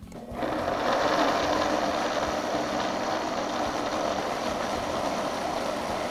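Countertop blender switched on just after the start, quickly coming up to a steady, even run as it purées cooked cauliflower florets in almond milk.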